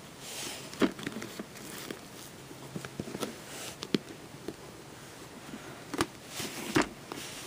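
Hands fiddling with a DVD box set case while trying to open it: scattered clicks and taps of the case, with short rustling scrapes about a second in and again near the end.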